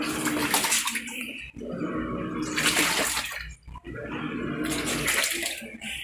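Panasonic top-load automatic washing machine agitating a full tub of water and laundry: the pulsator swishes and sloshes the load in strokes of about two seconds, with short breaks between and a faint motor hum under the water. The machine runs without the loud scraping from underneath, since the worn, sagging suspension springs that let the motor rub on the base have been replaced.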